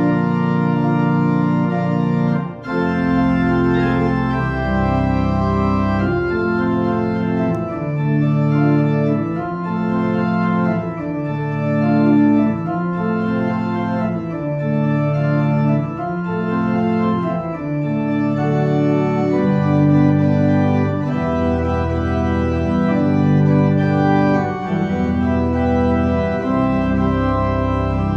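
Organ music: slow, sustained chords that change every second or two over a deep bass line.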